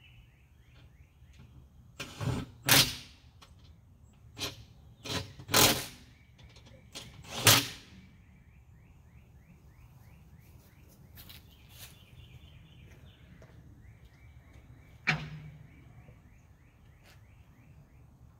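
A series of loud, sharp knocks and bangs, about eight close together in the first half and one more later, with a rapid repeated chirping in the background.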